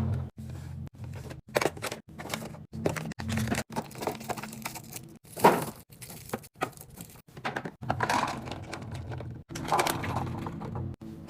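Restocking noises as drinks and packaged food are handled and set in place: sharp knocks, clicks and crinkling packaging in short clips joined by abrupt cuts, over a steady low hum.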